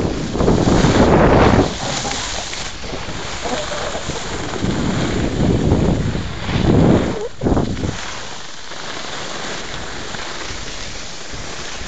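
Wind rushing over the microphone while skiing downhill, mixed with the hiss of skis sliding on snow. It comes in louder gusts near the start and again around the middle, then settles to a steadier, slightly quieter rush.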